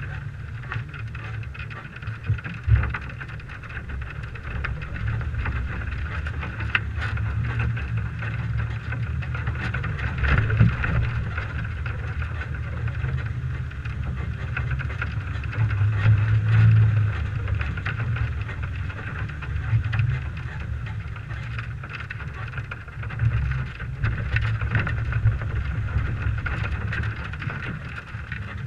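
Toyota 4Runner's engine running at low speed over rough dirt, with wind rumbling on a hood-mounted microphone. A few sharp knocks and thumps come through as the truck crosses the ruts and jumps.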